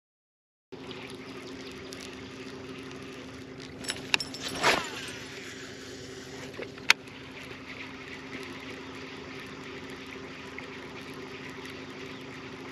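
Electric trolling motor on a bass boat humming steadily, starting about a second in, with a few sharp clicks and a short rattling burst around the middle.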